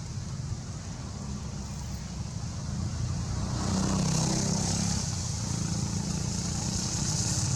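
A motor vehicle's engine rumbling, growing louder about halfway through, over a steady high hiss.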